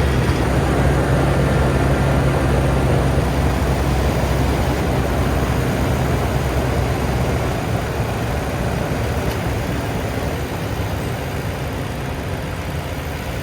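Freshly installed replacement engine in a 2010 Toyota Tundra idling steadily and smoothly, slowly getting quieter.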